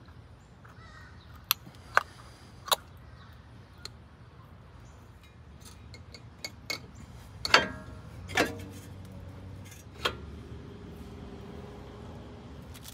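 Metal clicks and clinks from a new brake caliper and its pads being handled and fitted over a brake rotor. First come three sharp clicks, then, past the middle, two louder clanks that ring briefly and a last one whose ring hangs on for a couple of seconds.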